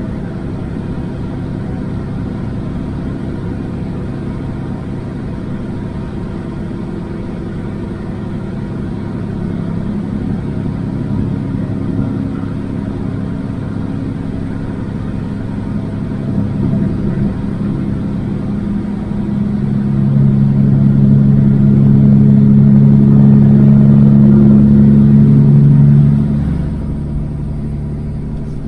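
Kenworth W900 semi truck's engine and road noise heard from inside the cab while driving through a road tunnel. The steady drone grows louder in the second half and drops off near the end as the truck leaves the tunnel.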